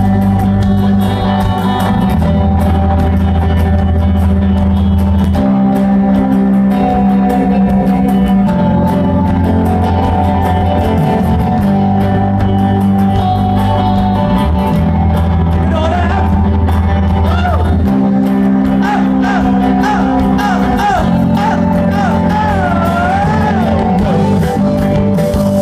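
Live rock band playing: electric guitars, bass and drums, with the bass line changing note every few seconds. Singing comes in past the middle.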